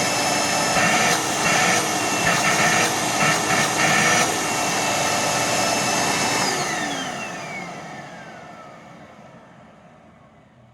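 Dirt Devil Purpose For Pets upright vacuum running with a steady high whine, the sound surging unevenly several times in the first few seconds. About six and a half seconds in it is switched off and the motor spins down, its whine gliding down as it fades.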